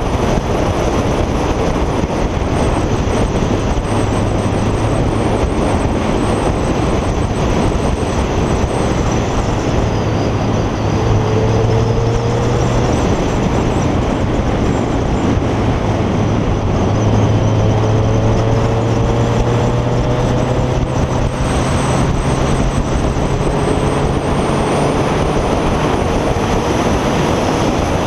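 Onboard motorcycle ride at road speed: a steady rush of wind and road noise over the engine's hum, with the engine note rising a few times as the bike pulls harder.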